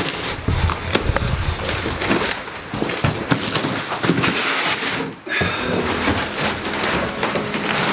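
Cardboard box and packing being handled and pulled apart: rustling and scraping with repeated knocks and thumps, briefly dropping off about five seconds in.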